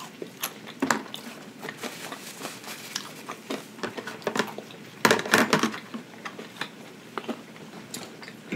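Close-miked chewing of food with wet mouth smacks and small clicks, louder for a moment about five seconds in.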